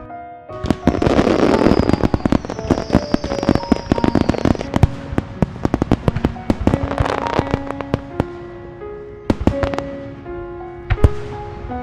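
Fireworks bursting: a dense run of bangs and crackling that starts about half a second in, thickens again about seven seconds in, then thins to a few single loud bangs near the end. Background music plays under it.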